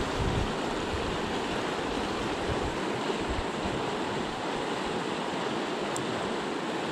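Steady rush of a fast, shallow mountain river running over riffles and rapids, with some low wind rumble on the microphone.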